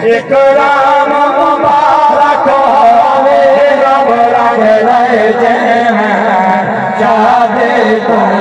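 Male naat reciters singing a Punjabi naat in long, wavering held notes through a loudspeaker sound system.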